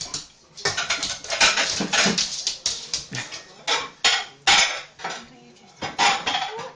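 Dishes and cutlery clattering and clinking: many irregular sharp knocks, with short quiet gaps about half a second in and around five seconds in.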